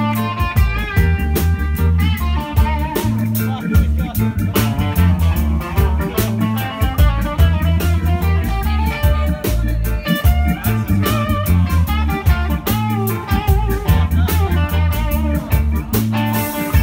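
Live band playing an upbeat song: electric guitar, trombone and drums over a stepping bass line, with steady drum strokes throughout.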